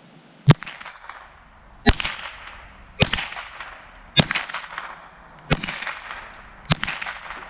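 Mossberg 702 Plinkster semi-automatic .22 LR rifle firing six shots at a steady pace, about one every 1.2 seconds. Each crack is followed by a short echo that dies away.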